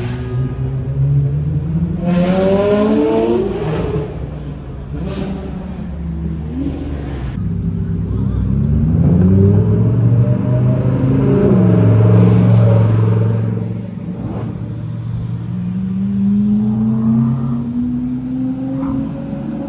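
Sports car engines revving and accelerating hard, the engine note climbing in pitch through several pulls, loudest about ten to twelve seconds in.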